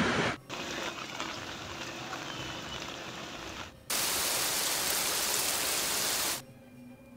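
Heavy rain pouring down as a steady hiss, in spliced clips: a moderate hiss at first, then from about four seconds in a louder, brighter hiss of rain falling on water that cuts off abruptly about six and a half seconds in, leaving only a faint background.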